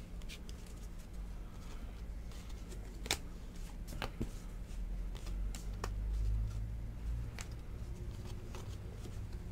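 Glossy trading cards being flipped and slid against one another in the hands, soft rustling with a few sharp clicks as cards snap past each other. A steady low hum runs underneath.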